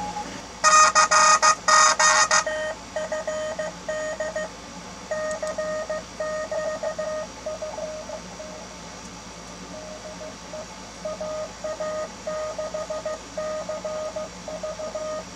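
Morse code (CW) received on a Malahit-DSP software-defined receiver: a single beeping tone keyed in dots and dashes. For about the first two seconds the signal is much louder and harsh with overtones, the distortion the receiver's audio processing adds to really strong signals, and after that it goes on cleaner at a moderate level.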